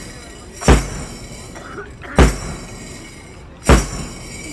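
Three loud, crashing percussion strikes, evenly spaced about a second and a half apart, beating a steady time.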